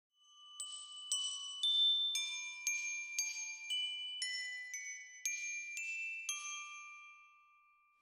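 Intro music: a high, bell-like melody of single struck notes, about two a second, each note ringing on. It fades away near the end.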